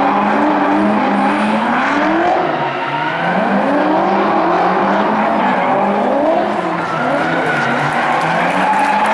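Two drift cars, one a Nissan Silvia S13, drifting in tandem: their engines rev up in repeated rising climbs and fall back about every second or two, over the hiss and squeal of sliding rear tyres.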